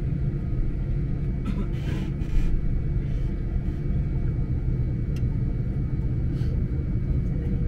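Steady low rumble inside a jet airliner's cabin as it taxis before take-off, with a faint steady high engine whine. A few brief soft rustles about two seconds in.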